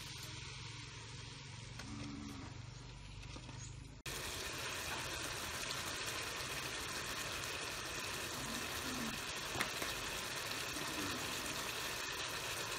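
Pot of fish curry with water convolvulus simmering over a stove: a steady bubbling hiss, which jumps to a fuller, louder hiss about four seconds in.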